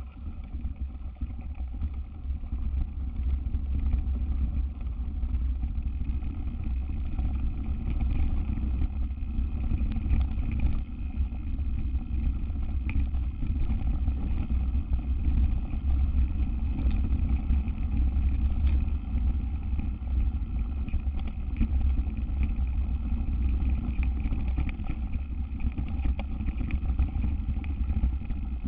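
Mountain bike descending a dirt trail: steady wind rumble on the bike- or helmet-mounted microphone over tyre noise, with scattered clicks and rattles from the bike.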